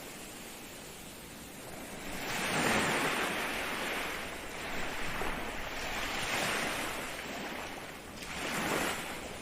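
Ocean waves breaking and washing on the shore, three swells of surf about two to three seconds apart, with the loudest about three seconds in.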